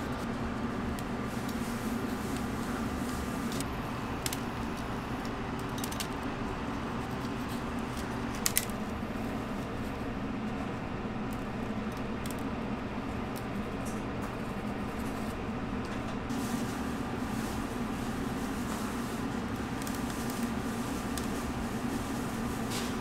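Steady mechanical hum of kitchen equipment, with a few light clicks, the sharpest about eight and a half seconds in.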